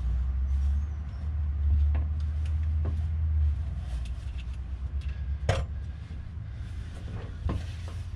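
A few sharp clicks and knocks of metal parts and tools being handled under a car during steering rack work, the loudest about halfway through, over a low rumble that fades after the first few seconds.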